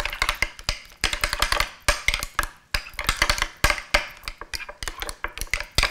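Metal spoon clinking and scraping against a small glass bowl while stirring a thick yogurt sauce, a quick, irregular run of clinks.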